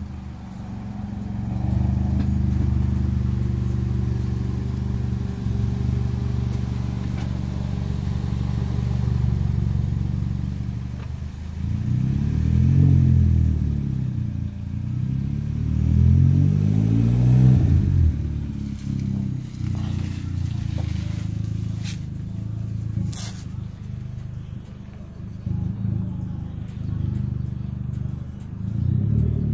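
Hyundai Genesis Coupe's turbocharged four-cylinder engine idling steadily, revved up and let fall back twice around the middle and once more briefly near the end.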